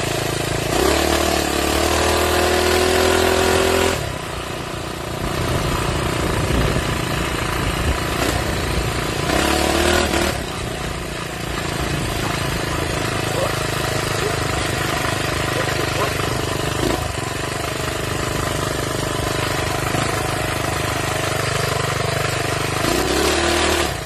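Small minibike engine running while riding, revving up hard about a second in and again around ten seconds and near the end, and holding steadier speed in between.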